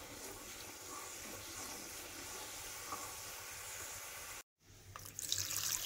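Thick tamarind-and-jaggery chutney bubbling in a kadai over a high gas flame: a steady, soft sizzle. It cuts off about four and a half seconds in, and water starts running just before the end.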